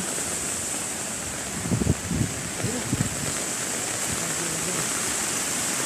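Muddy floodwater rushing down a ravine in a flash flood, a steady river-like rush. A few low thumps come about two to three seconds in.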